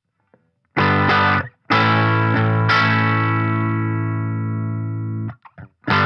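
Electric guitar played through a Fender Champion 20 amp on its Blackface '65 Twin voice: after a moment of silence, a short chord, then a chord struck and left ringing for about two and a half seconds before it is muted, and playing picks up again near the end.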